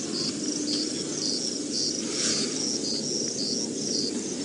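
Insect chirping steadily: a high two-note chirp, the second note lower, repeated about twice a second.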